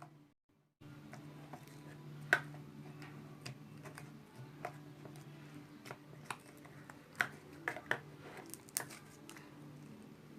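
Slime being handled and squished, giving scattered sharp clicks and pops at uneven intervals over a steady low hum, with a louder cluster of pops near the end.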